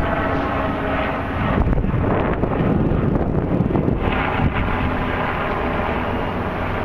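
Wind buffeting the microphone over a steady low rumble of outdoor background noise, swelling in gusts in the middle.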